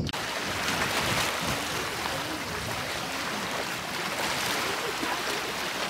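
Steady wash of sea water at the shore, with faint distant voices in the background.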